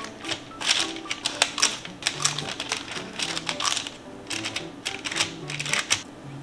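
Background music playing a simple stepped melody, over irregular quick clicks and taps, a few each second, from kitchen work.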